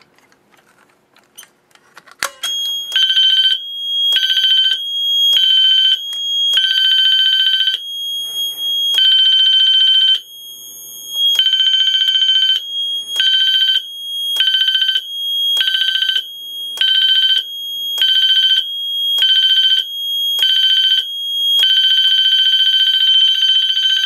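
Fire alarm signal from a releasing panel in alarm after its manual pull station is pulled. A click is followed by a high steady tone and an alarm sounding in pulses, about once a second for most of the stretch, then going steady near the end. On this panel the change from pulsing to steady marks the agent release stage.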